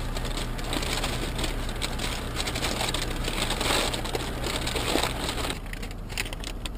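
Crackly rustling of paper and food packaging being handled inside a car, over the steady low hum of the idling engine. The rustling breaks off abruptly near the end.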